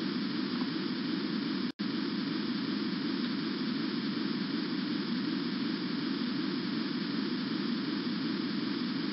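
Steady hiss and hum of the recording's background noise, with no other sound; the audio cuts out for an instant about two seconds in.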